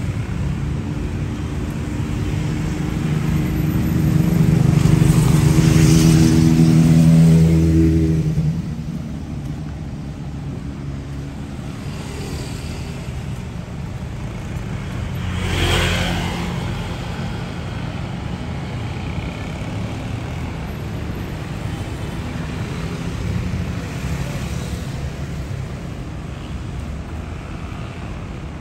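Steady busy city road traffic. A large vehicle's engine note drones past close by from about four to eight seconds in and is the loudest sound. Another vehicle swishes past about sixteen seconds in.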